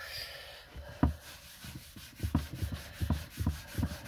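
Round blue applicator pad rubbed back and forth over a wooden marquetry panel, working finishing oil into the surface, in rhythmic strokes about three a second. There is one sharp knock about a second in.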